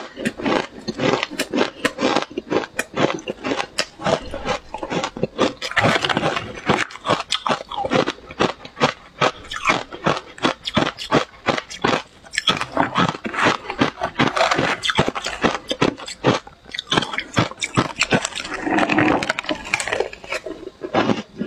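Ice dusted with matcha powder being bitten and chewed, a rapid, irregular crunching, with a metal spoon scraping ice from a glass bowl between bites.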